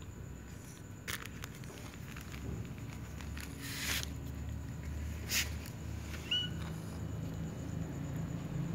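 Cats eating off a tiled floor: small clicks and rustles from chewing and shuffling over a steady low rumble, with a short rustling burst about four seconds in and a brief high squeak a little after six seconds.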